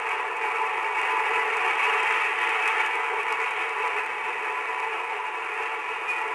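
Freight train cars rolling past and away on the rails, heard as a steady, muffled rushing noise through a narrow, tinny old film soundtrack.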